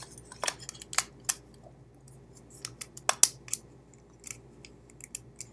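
Sharp, irregular small plastic clicks, the loudest about three seconds in: the on-off slide switch of a Logitech M305 wireless mouse being flicked on and off to test it after reassembly.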